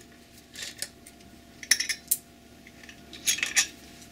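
Small metallic clicks and clinks of a hex key turning out the end-cap screws of a billet aluminum oil catch can, with the loosened steel screws clinking. They come in three short clusters: about half a second in, around two seconds in and near the end.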